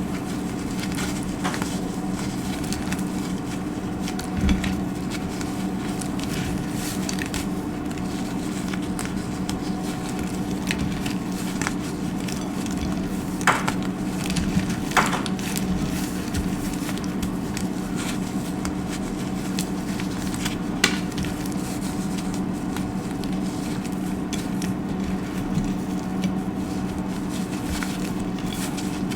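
Dry soap being cut and crunched: crisp crackling with scattered sharp snaps, a few louder ones near the middle, over a steady low hum.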